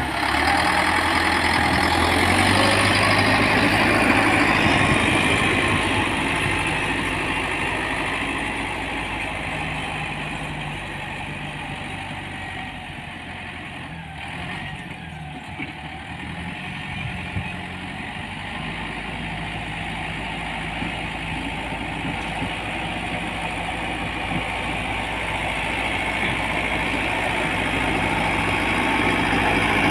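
Diesel engine of a road-works machine (motor grader or backhoe loader) running steadily. It grows quieter toward the middle, then louder again near the end, as if the machine moves away and comes back.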